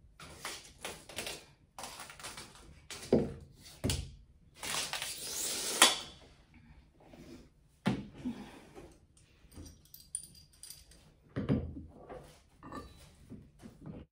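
Irregular knocks, clinks and thunks of a metal wall bracket and hand tools being handled against a wall, with a longer scraping rasp about five seconds in.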